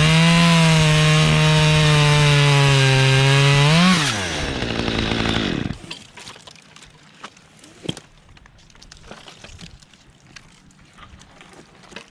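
Chainsaw at full throttle cutting through a tree limb. The engine speeds up sharply about four seconds in as the cut finishes and the load comes off, then drops away. After that come only faint rustles and ticks, with one sharp click.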